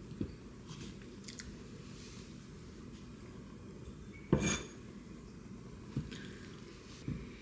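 Kitchen knife chopping through sheets of fish cake and knocking on a wooden cutting board: four separate knocks, the loudest a little past the middle with a short metallic ring, with faint clicks between.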